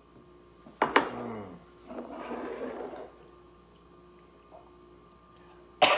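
Sharp vocal sound after a sip of neat bourbon, falling in pitch, then about a second of breathy exhaling. A short sharp sound comes just before the end.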